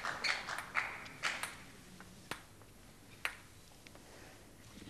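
Celluloid table tennis ball making sharp, irregular clicks as it is bounced and handled before a serve. A couple of short high-pitched toots from the crowd come in the first second.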